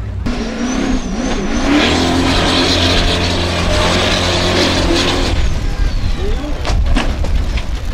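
Formula Offroad buggy's engine revving hard, its pitch wavering up and down. Near the end come several sharp knocks and crashes as the buggy tumbles and rolls down the dirt slope.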